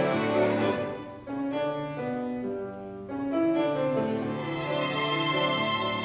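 A group of eight young violinists playing a slow melody together, with piano accompaniment. The music drops to a softer, thinner passage about a second in and grows fuller again about three seconds in.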